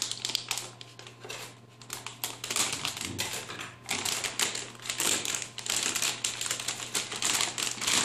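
Silver metallised anti-static bag crinkling and crackling as it is pulled open and handled, in quick irregular bursts.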